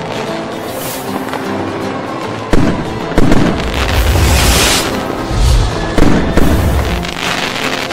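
Fireworks going off over background music: several sudden loud booms, the first about two and a half seconds in and another at about six seconds, with a crackling fizz in between.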